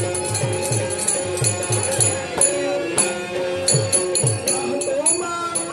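A man singing a song to a percussion accompaniment: low drum beats and sharp jingling strokes.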